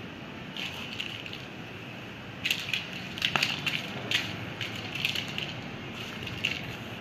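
Dry crunching and crackling in several short bursts, loudest in the middle, as a kitten paws and bats at rubber slippers and a small dry object on a tiled floor. A steady hiss runs underneath.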